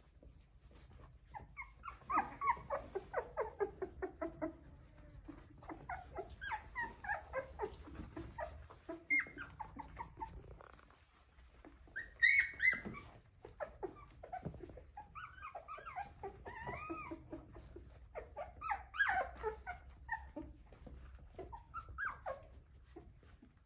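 A litter of Australian Shepherd puppies whimpering and yipping in clusters of quick, short, high calls, with scattered light clicks. One sharp, high yelp about halfway through is the loudest sound.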